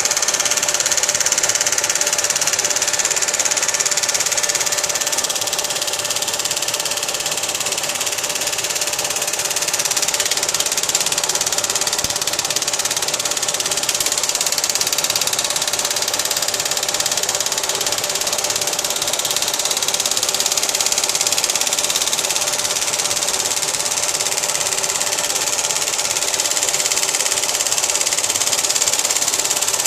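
Lathe running steadily, a constant hum with a high hiss.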